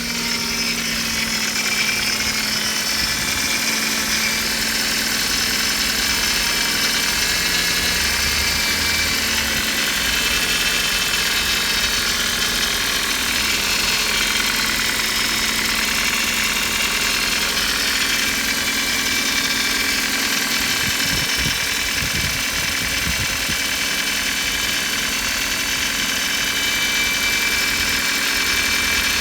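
Ford Focus Mk3 1.6 Duratec Ti-VCT Sigma petrol engine idling, with a metallic whistling squeak from under the bonnet heard as several steady high tones that waver in pitch. The squeak is a fault noise that gets stronger when the steering is turned to full lock.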